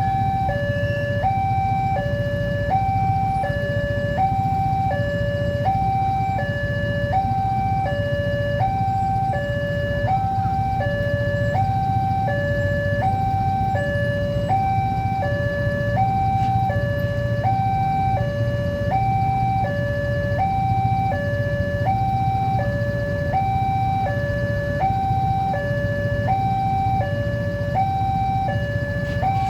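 Railway level crossing warning alarm: an electronic two-tone signal alternating steadily between a higher and a lower tone, about one high-low cycle every second and a half, warning that a train is approaching. A steady low rumble runs underneath.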